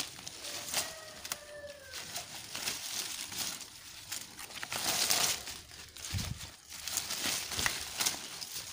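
Grapevine leaves rustling and crinkling as they are handled and brushed past, with a few sharp clicks. A short bird call rises and falls about a second in.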